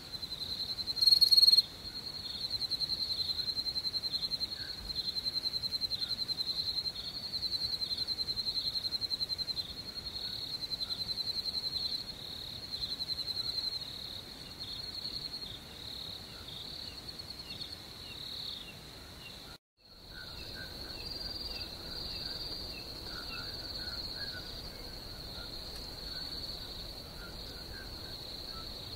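Night chorus of crickets, a steady high-pitched trilling with louder pulsed trills repeating every second or so. A brief, louder burst comes about a second in, and the sound cuts out for a moment about two-thirds of the way through before the chorus resumes with fainter, lower chirps mixed in.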